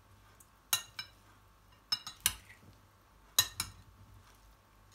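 Metal spoon and fork tossing salad in a glass bowl, clinking sharply about six times, mostly in quick pairs.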